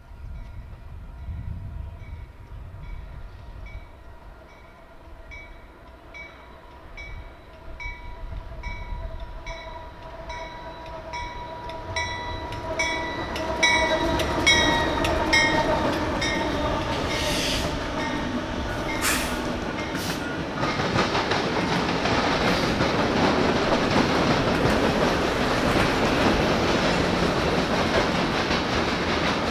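Freight train approaching with a bell ringing about twice a second, its diesel locomotive passing loudly about 14 seconds in. Then the train's cars roll by steadily, with the clickety-clack of wheels over the rail joints and a few sharp metallic clanks.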